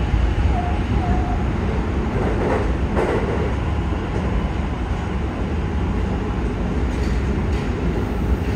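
Running noise heard inside a Yokohama Municipal Subway 4000 series car with Mitsubishi hybrid SiC-VVVF traction equipment: a steady low rumble of wheels on rail and running gear while under way. Two brief clunks come about two and a half and three seconds in.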